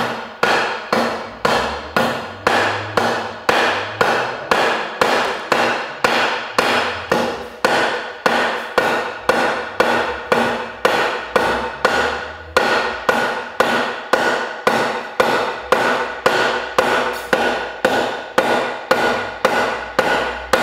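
Steady hammer blows, about two a second, on a wooden block held on top of a frozen new cylinder liner, driving the liner into a six-cylinder bus engine block. Each blow rings briefly.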